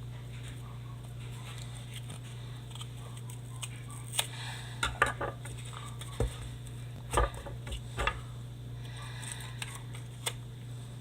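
Knife and hands working a firework mortar shell apart: a cluster of sharp clicks and knocks over a few seconds in the middle, over a steady low hum.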